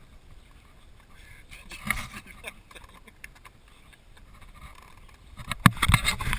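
Low, steady outdoor background, then near the end a quick series of sharp knocks and rattles from the camera being handled and moved.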